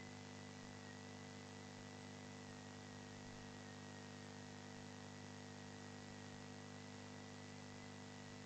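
Near silence: a faint, steady background hiss and electrical hum.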